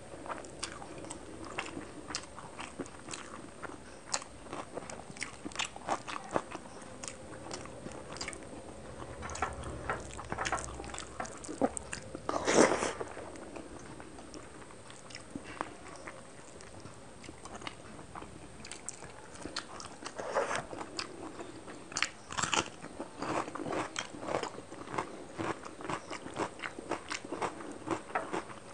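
Close-miked chewing and mouth sounds of a person eating rice and fish curry by hand: a continual run of wet clicks and smacks, with one louder burst near the middle.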